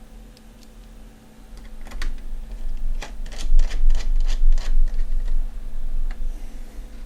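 Screwdriver driving small screws back into a graphics card during reassembly: a quick run of sharp clicks, about four or five a second, through the middle, with a few single clicks before and after.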